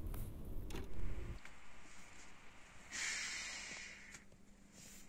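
A woman's drawn-out "shh" hush, about three seconds in, lasting about a second and fading away. Before it there is a low, muffled rumble for the first second or so.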